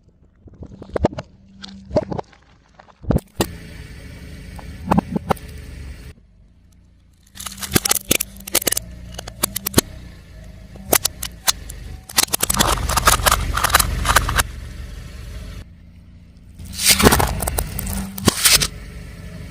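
A car tyre rolling over and crushing crunchy objects: several separate takes of sharp cracks and crackling, joined by abrupt cuts, over the car's low running rumble.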